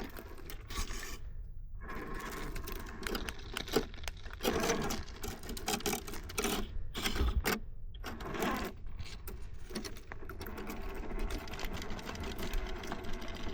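Electric motor and geared drivetrain of an RC4WD Blazer scale crawler whirring in on-off bursts as it is throttled up an off-camber rock, the tires struggling for traction.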